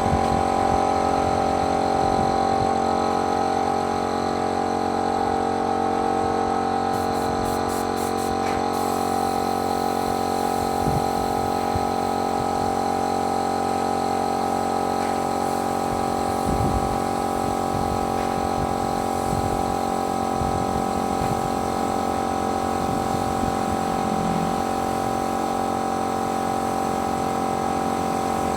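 Paint-spraying machine running with a steady, even mechanical hum, with a few brief low knocks partway through.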